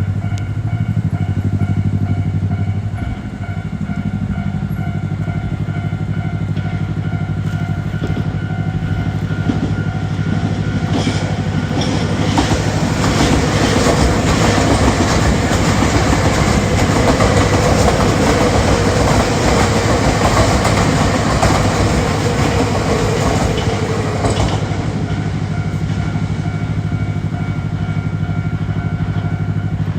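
Railway level-crossing warning bell ringing in a steady repeated pattern. About eleven seconds in, a train runs through the crossing for roughly thirteen seconds, its wheels clattering on the rails and drowning the bell, which is heard ringing on after the train has passed.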